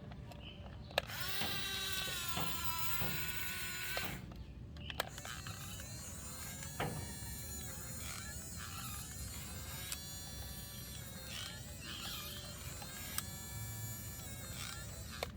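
A small electric motor whirring with a whine that shifts in pitch, broken by scattered clicks.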